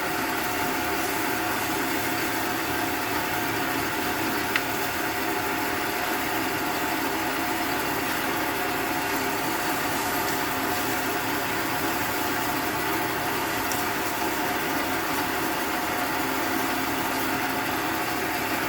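Small motor, most likely a cue lathe spinning the cue, running steadily as the new tip is sanded with 1000-grit paper. A single faint click about four and a half seconds in.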